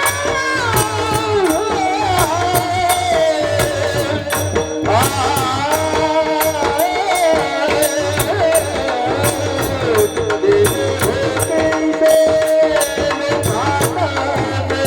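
Marathi kirtan singing: a voice sings a gliding devotional melody over a held drone, with small hand cymbals striking a steady beat a few times a second and a drum underneath.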